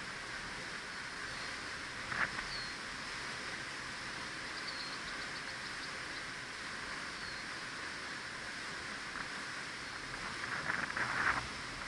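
Steady outdoor hiss with a few faint, short high chirps, a single click about two seconds in, and a brief rustling burst near the end.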